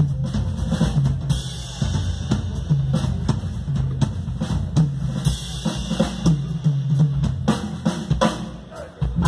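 A live big band's rhythm section playing a groove: drum kit with steady kick and snare hits and two cymbal washes, over a repeating electric bass line. The level dips briefly near the end.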